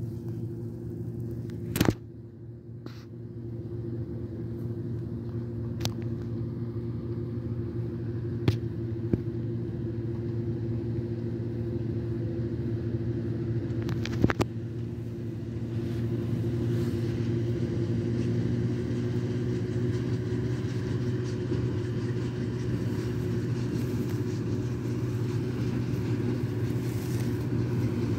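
Don-680M forage harvester running, with the KamAZ truck it is loading alongside, as a steady engine drone that grows louder as they come closer, especially about halfway through. A few sharp clicks stand out, the loudest about two seconds in.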